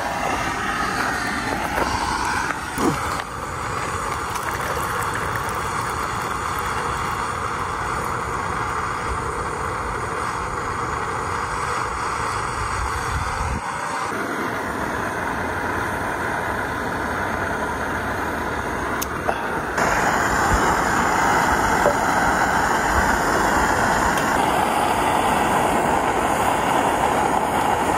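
Steady hiss of a backpacking gas stove burner running under a pan, its tone shifting abruptly about halfway through and again a few seconds later.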